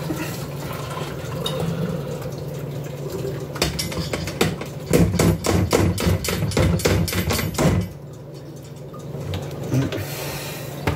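Cooked macaroni and its water being poured from a stainless steel pot into a colander in the sink, a steady rush, then a fast run of metal knocks, about four or five a second for some four seconds, as the pot is rapped to shake loose macaroni stuck inside it.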